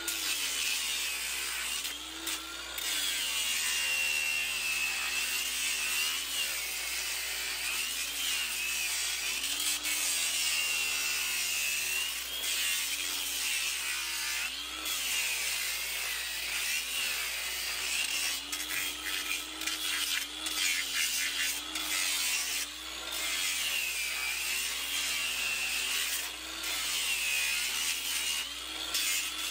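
Angle grinder with a hoof-trimming disc grinding horn off a horse's hoof. The motor whine dips and rises in pitch every second or two as the disc is pressed into the hoof and eased off, over a steady rasping hiss.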